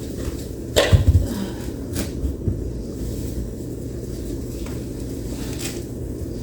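A few knocks and thumps of furniture parts being handled and fitted together, the loudest a sharp knock with a low thud about a second in, then lighter clicks, over a steady low rumble.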